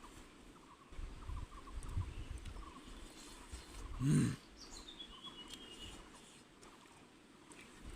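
Quiet outdoor ambience with faint repeated chirps. About four seconds in comes a short, louder low-pitched sound, followed by a falling whistle-like call.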